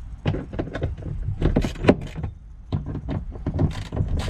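Ratchet with a 10 mm socket clicking in short irregular runs as the bolts of a plastic interior trim panel are loosened.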